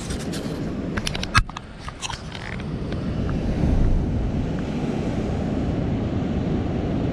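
Ocean surf washing and breaking against a rock shelf, with wind rumbling on the microphone. The surge swells up about three to four seconds in, and a few sharp clicks and knocks come in the first two seconds.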